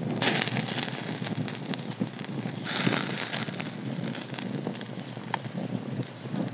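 Wood fire crackling steadily, with two hissing bursts about a second long, one at the start and one about halfway through.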